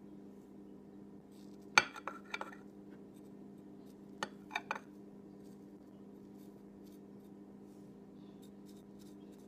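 Metal fork clinking against a plate: three quick clinks about two seconds in, the first the loudest, and three more a little after four seconds, over a steady low hum.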